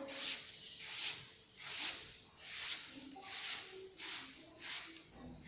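Brisk hand strokes of a painting tool rubbing across a wall as a texture paint finish is worked on, a rhythmic swish about every three quarters of a second.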